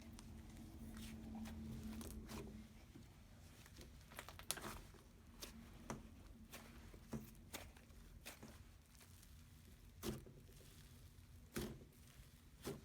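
Hands playing with slime: scattered small clicking pops and crackles, roughly one a second, as the slime is pressed and pulled.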